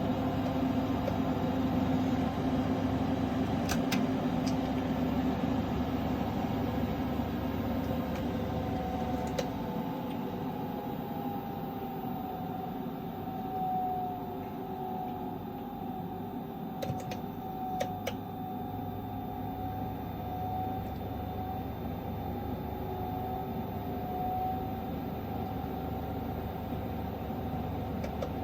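MPP Solar PIP8048MAX solar inverter making an abnormal steady hum with a whine that wavers slowly in pitch; the deeper part of the hum drops away about ten seconds in, and a few faint clicks come through.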